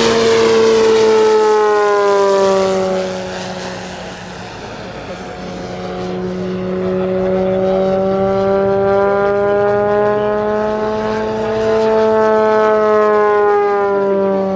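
Electric-powered scale Gee Bee R-2 model racer in flight: its motor and propeller give a steady pitched drone. The pitch falls over the first few seconds and the sound dips briefly. It then grows and rises slowly, and falls again near the end.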